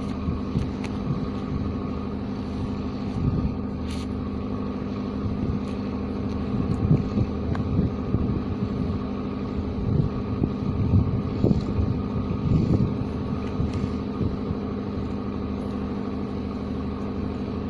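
An engine running steadily with a constant, even-pitched hum. Irregular low bumps come and go, strongest from about six to thirteen seconds in.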